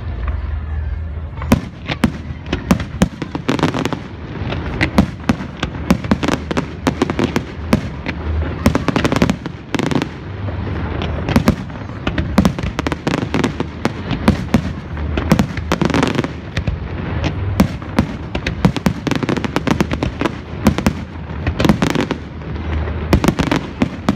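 Fireworks display: a fast, unbroken run of bangs and crackles from shells bursting, several a second, over a steady low rumble.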